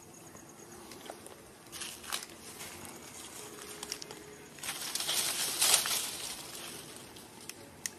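Faint outdoor rustling and crackling in two bursts: a short one about two seconds in and a louder, longer one around five to six seconds in.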